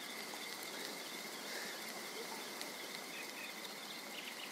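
Quiet outdoor ambience of insects chirring steadily, a constant high thin tone over a soft even hiss.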